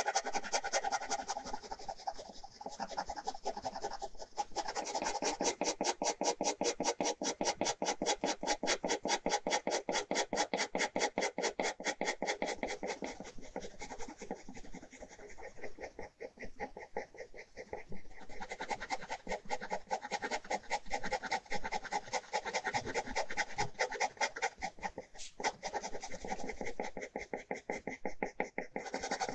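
Ballpoint pen hatching on paper: rapid back-and-forth scratching strokes, several a second, laying down shading. The strokes thin out for a few seconds around the middle, then pick up again.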